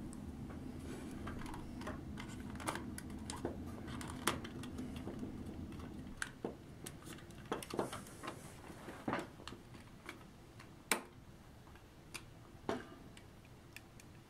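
Irregular light clicks and taps of hands handling small plastic toy parts. A low steady hum runs under them and stops about six seconds in.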